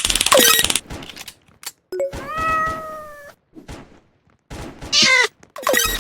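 Domestic cats meowing: a short call, then a long drawn-out meow about two seconds in, and two shorter meows near the end. A fast rattling sound fills the first second.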